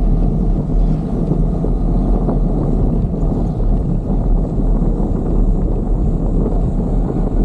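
Loud, steady wind rumble on the microphone of an action camera on a moving bicycle.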